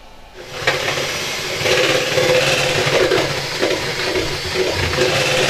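Electric hand mixer switching on about half a second in and running steadily, its beaters whisking batter in a mixing bowl.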